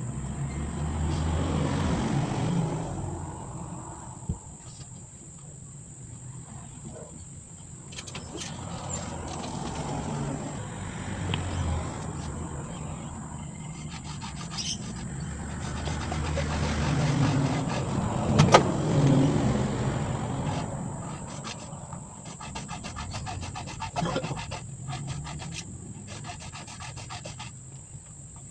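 Hacksaw cutting through thick-walled PVC pipe, the blade rasping back and forth, with a quick, even run of strokes near the end. A low rumble comes and goes underneath.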